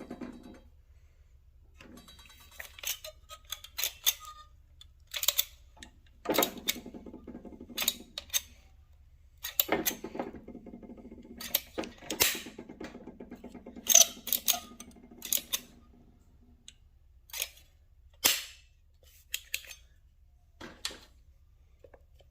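Irregular clicks, taps and knocks of hand work with small tools and parts, with a few stretches of a low steady buzzing hum.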